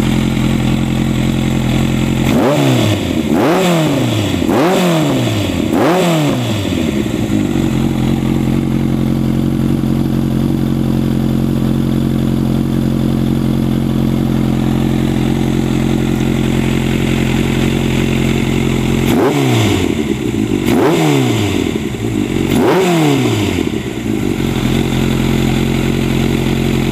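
Kawasaki Zephyr 1100's air-cooled inline-four engine idling through an aftermarket exhaust. It is blipped four times in quick succession early on and three more times about two-thirds of the way through, with the revs rising and falling back to a steady idle after each blip.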